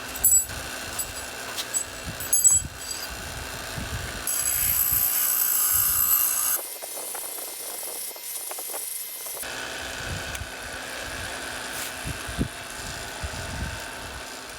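Bench grinder running while a welded steel paddle bit is ground against the wheel to take down the weld bead. There are a few sharp knocks near the start, and a loud hiss of grinding from about 4 to 6.5 seconds in.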